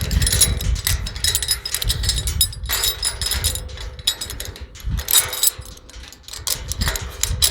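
Metal latch hardware clinking and rattling as bolts and a bracket are fitted into a different set of holes on a tubular metal gate, with many short irregular clicks over a low rumble.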